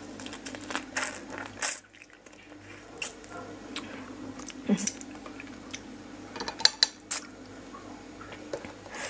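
Close-up eating of raw fish-sauce-pickled blue swimmer crab: wet squishing as the crab meat is bitten and pulled from the shell. Scattered sharp clicks of shell run through it, with one louder click a little before two seconds in.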